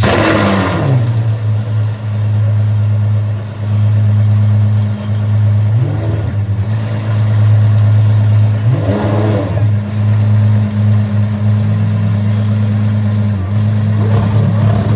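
Apollo Intensa Emozione's naturally aspirated V12 idling steadily and being revved: a blip falls back to idle at the start, then three more short revs rise and fall at intervals.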